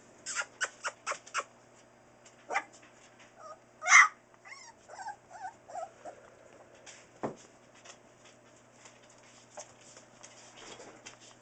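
Four-week-old Newfoundland puppies whining and yipping, with one loud yelp about four seconds in and a few wavering whimpers after it, among small scuffling clicks.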